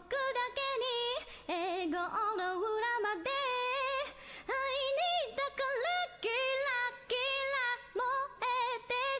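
A woman singing unaccompanied, a cappella, in phrases of held notes with vibrato broken by short pauses for breath.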